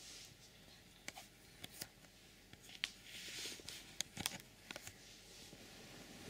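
Faint rustling of a blanket and bedding, with scattered soft clicks and taps, as a blanket is pulled back off a sleeping baby.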